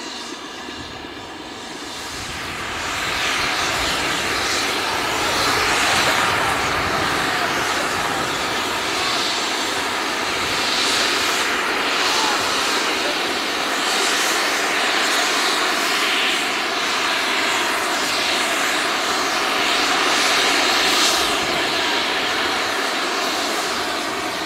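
Steady hissing roar from a line of standing steam and diesel locomotives: steam escaping from the leading steam engine, with diesel engines running underneath. It swells up about two seconds in and then holds.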